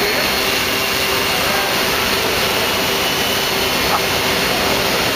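Hexacopter drone flying overhead, its six propellers making a steady whirring whine with a few held pitches.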